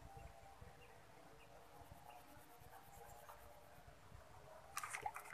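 Quiet pond-side ambience with faint, thin wavering calls of small creatures. Near the end comes a quick cluster of sharp splashy clicks as a fish hits the bait at the water's surface.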